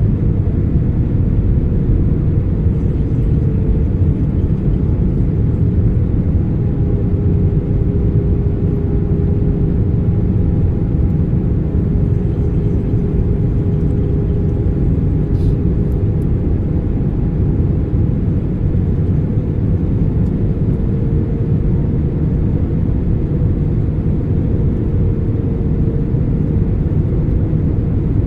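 Steady roar of jet engines and airflow heard inside the cabin of an Airbus A320 airliner, a deep, even noise with a faint steady hum over it.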